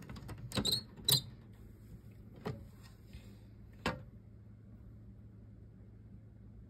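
A few sharp clicks and taps against a clear plastic hamster cage, four in the first four seconds with the loudest about a second in, over a low steady hum.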